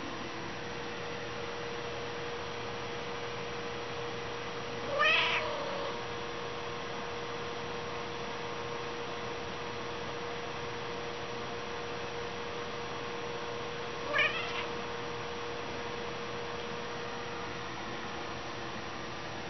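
A cat meows twice, short high calls about five seconds in and again about fourteen seconds in, over a faint steady hum.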